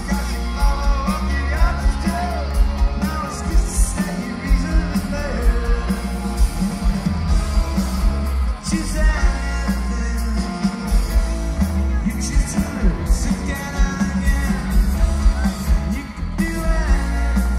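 Indie rock band playing live through a large outdoor PA: a man sings over a driving drum beat, heavy bass and guitars, heard from within the crowd.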